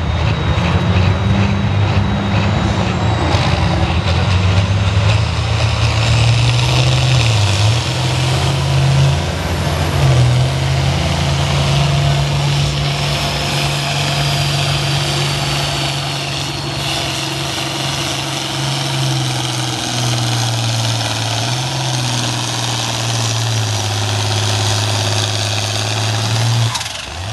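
Diesel farm tractor engine running hard under load in a tractor pull. Its pitch steps up and down several times, and the sound drops away suddenly at the very end.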